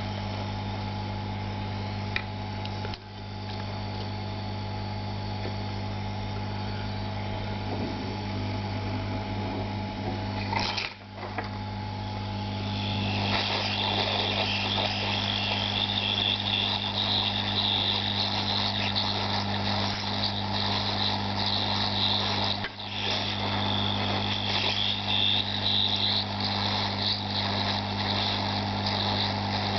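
Hot-air rework station blowing steadily: a low hum with an airy hiss that grows louder about thirteen seconds in, used to desolder RAM chips from a router board.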